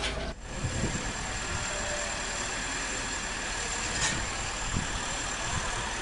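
Kobelco SK200 hydraulic excavator's diesel engine running steadily, with a thin high whine over it.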